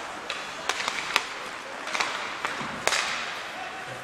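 Ice hockey play on the rink: a few sharp clacks of sticks and puck, the loudest about three seconds in, over a steady hiss of skates on the ice.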